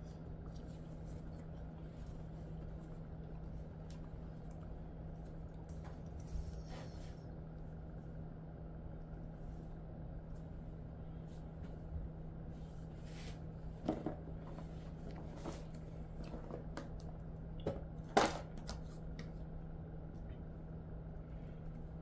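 Quiet room tone with a steady low hum, dotted with faint clicks and rustles; two sharper clicks stand out in the second half.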